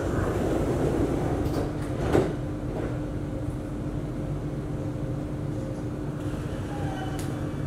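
Metro train's sliding passenger doors closing, ending in a single knock as they shut about two seconds in, then the steady hum of the standing carriage.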